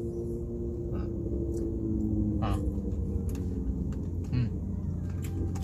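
Big motorcycle engine passing by the car, its note slowly falling in pitch over the first few seconds, over a low steady hum, with a few light clicks.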